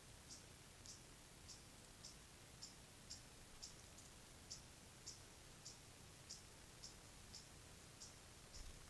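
Faint, short, high-pitched chirps repeating steadily about twice a second, from an unseen chirping creature, over a low hiss.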